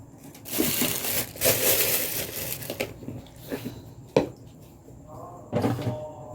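Crinkling, rustling handling noise in bursts: a long stretch over the first few seconds, then a few sharp clicks, a single sharp knock about four seconds in, and another short burst near the end.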